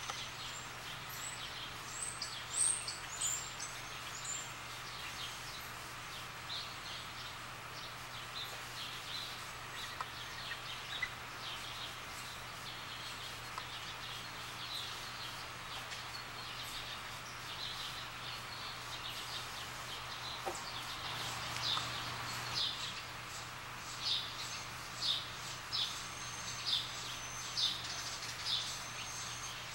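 Birds calling: short, high chirps scattered through, coming louder and about once a second over the last six seconds, over a steady low hum.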